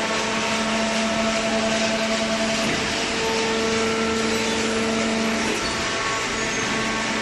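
Semi-automatic horizontal cardboard baler running: a steady machine noise under a hum that changes pitch about three seconds in and drops out about five and a half seconds in.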